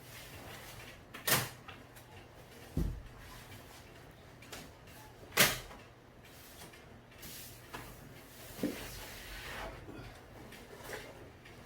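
Door hardware being worked on in a door repair: two sharp clicks, about a second and five seconds in, a dull thump between them, and lighter knocks and taps after.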